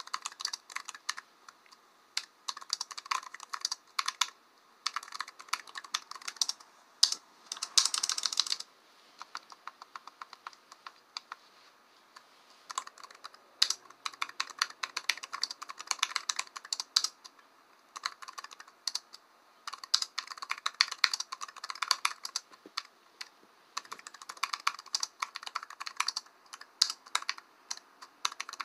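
Typing on a keyboard: quick runs of key clicks in bursts, with a brief louder, denser flurry about eight seconds in and a pause of about three seconds shortly after.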